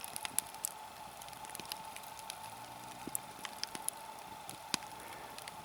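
Log campfire burned down to a bed of embers, crackling faintly with scattered, irregular pops, over a faint steady hum.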